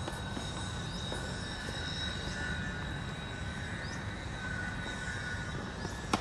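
Steady outdoor background hum with a high steady whine and a faint short rising chirp about every second and a half. Near the very end, one sharp crack of a tennis ball bouncing on the hard court.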